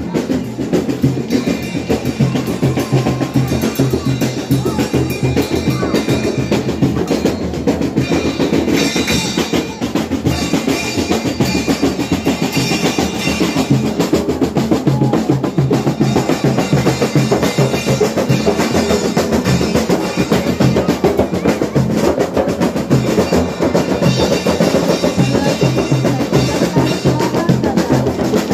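Several rebana frame drums struck by hand together in a fast, steady beat.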